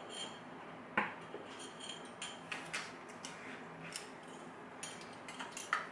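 Small metal clicks and clinks of a Kwikset lock's parts and tools being handled as the lock is taken apart. There is a sharper click about a second in and another near the end.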